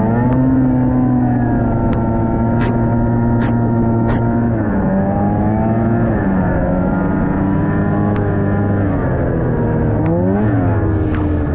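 Snowmobile engine running under way, its note holding steady, then dropping and climbing again several times as the throttle eases off and opens back up. A few faint ticks sound in the first few seconds.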